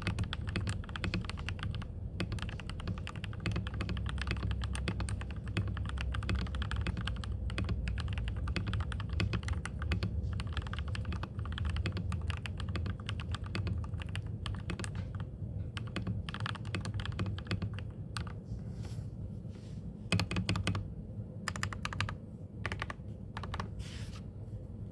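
Typing on a Mongeek MG108B mechanical keyboard with Gateron Milky Yellow Pro linear switches and PBT pudding keycaps, stock case foam and stabilisers. Fast, dense keystrokes at first, thinning after about fifteen seconds to sparser strokes and short runs.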